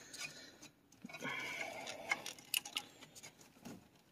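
Plastic wiring-harness plugs on an ignition switch being handled and unclipped by hand: a stretch of rustling about a second in, then a few sharp plastic clicks as the locking tabs are pushed in.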